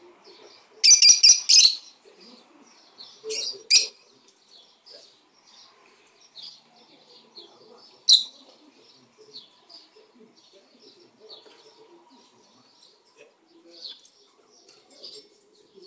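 Rosy-faced lovebirds chirping: a stream of short high chirps, broken by loud, harsh shrieks about a second in, again around three and a half seconds, and once near the middle.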